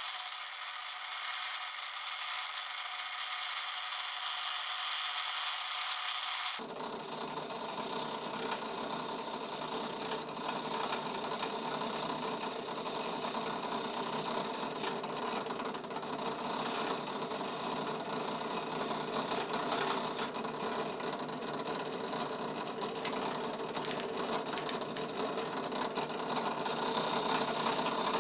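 Drill press spinning a brush wheel while the metal chuck and shaft of a vintage carpenter's brace are held against it, a steady scrubbing noise as grime and rust are cleaned off. About six or seven seconds in the sound changes abruptly and becomes fuller and lower.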